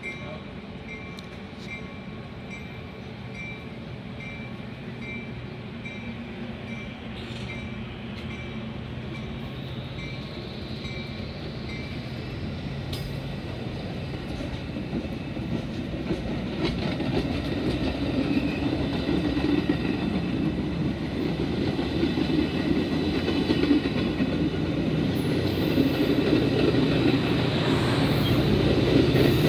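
Metra bilevel commuter train pulling out of the station alongside the platform, its rumble and wheel clatter growing steadily louder.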